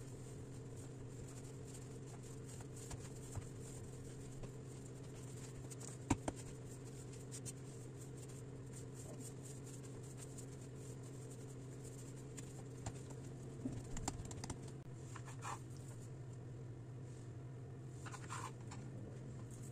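Soft pats and taps of hands kneading a ball of dough on a stone countertop, over a steady low electrical-sounding hum. There is a sharper knock about six seconds in and a few brief squeaks near the end.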